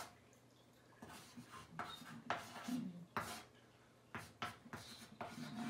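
Chalk writing on a chalkboard: a string of short, irregular strokes and taps of the chalk against the board, with small gaps between them.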